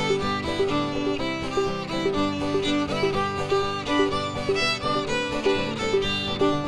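Acoustic string-band instrumental: a fiddle carries the melody over strummed acoustic guitar and a steadily picked banjo.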